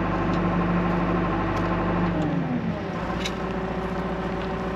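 John Deere 310 backhoe's diesel engine running steadily, then dropping in speed a little over two seconds in and settling to a lower idle.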